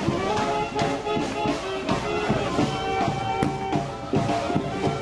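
Music with a steady beat and held melody notes.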